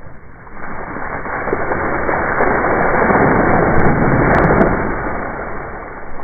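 Water flung from a basin splashing down over grass and a wooden deck: a long rushing splash that swells, then fades.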